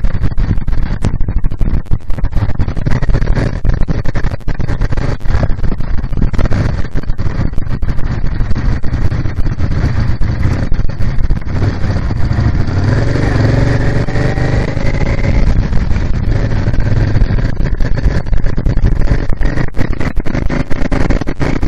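Motorcycle engine running under way, heavily buffeted by wind on the microphone. About twelve seconds in, the engine pulls up through the revs with a rising pitch for a few seconds, then settles back.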